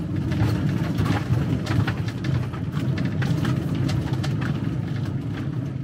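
Van being driven on a wet city road, heard from inside the cab: a steady low engine and road rumble with tyre hiss, broken by frequent light clicks and rattles.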